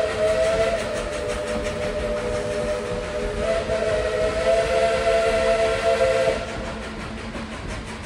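Steam locomotive whistle blowing one long chord of three close notes, cutting off about six seconds in, with the train running beneath it.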